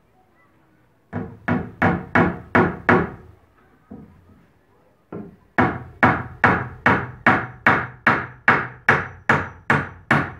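Claw hammer driving nails through a wooden bracing batten into a eucalyptus shoring post. It strikes a quick run of about six blows, pauses, then settles into a steady run of about fifteen blows, roughly three a second.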